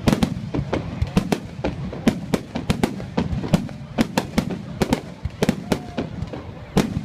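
Fireworks going off in a fast, irregular barrage of sharp bangs, several a second, over a continuous low rumble.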